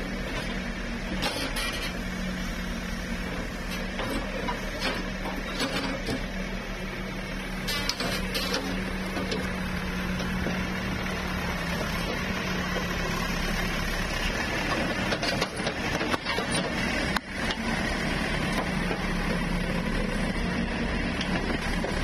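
JCB backhoe loader's diesel engine running steadily with a constant low hum, with a few sharp knocks and clatters now and then as it works on the demolition.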